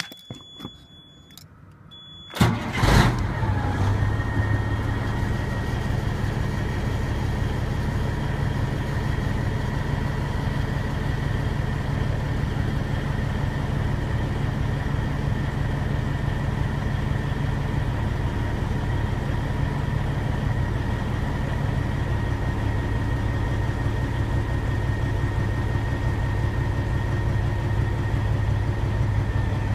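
Caterpillar 3406B inline-six diesel in a truck: after a high steady tone, it starts with a short burst about two and a half seconds in, then idles steadily. It is running just after a fuel filter change, with the new filter not pre-filled and fuel pressure still building.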